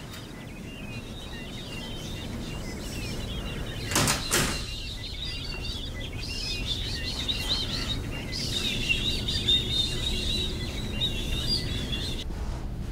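Rapid, twittering bird-like chirps over a low steady rumble, with a quick cluster of sharp knocks about four seconds in; the chirping cuts off suddenly near the end.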